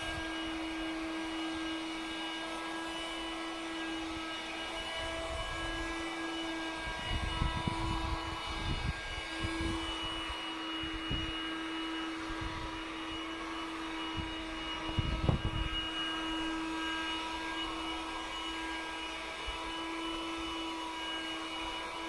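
Handheld vacuum cleaner running with a steady whine. A few low thumps and rumbles come through now and then.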